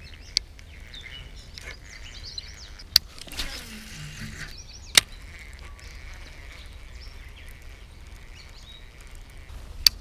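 Birds chirping over quiet outdoor ambience, cut by four sharp clicks from handling a baitcasting reel and rod.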